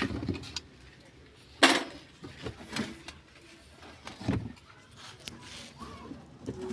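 Metal clanks and knocks as a car jack is pulled out from among clutter in a car's trunk. A sharp clank about two seconds in is the loudest, with a dull thump a little past the middle.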